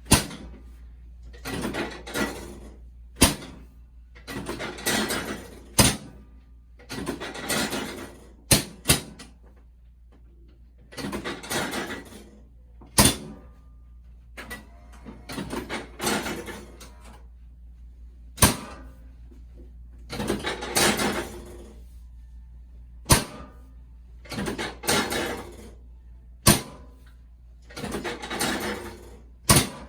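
Sharp clicks and knocks every few seconds from hands-on work during a chiropractic adjustment, alternating with short noisy sounds about a second long, over a low steady hum.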